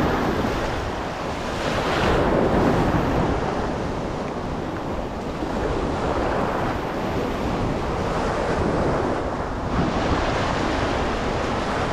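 Choppy sea waves washing, with wind rumbling on the microphone. The wash swells louder about two seconds in and again near the end.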